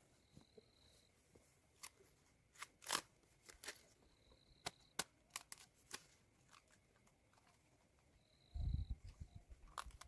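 A faint, irregular run of sharp snaps and crackles, about a dozen over four seconds, with a brief high thin tone heard three times. Low rumbling handling noise starts near the end.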